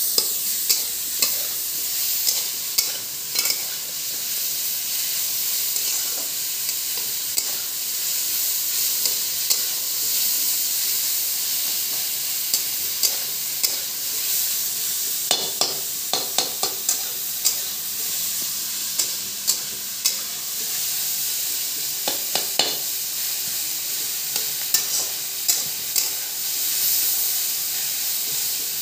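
Sliced onions and green capsicum sizzling in oil in a kadai while a flat metal spatula stirs and tosses them. Sharp, irregular clinks and scrapes of the spatula against the pan sound over a steady frying hiss, coming in quick clusters at times.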